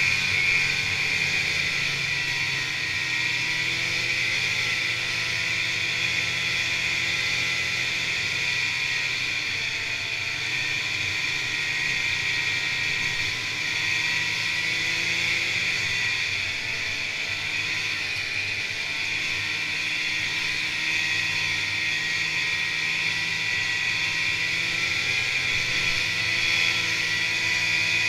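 Snowmobile engine running steadily at trail speed, heard from the rider's seat, its pitch drifting gently up and down, with a steady high whine over it.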